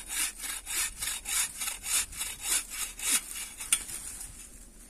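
Hand saw cutting through an oak branch with quick, regular back-and-forth strokes, about three to four a second. The strokes stop about three seconds in, and a single sharp snap follows.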